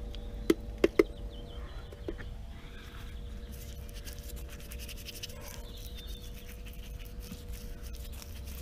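A paintbrush scrubbing bitumen blacking onto the welded steel hull of a narrowboat, a faint scratchy brushing. Near the start come three sharp knocks, the brush tapping against the tin of blacking.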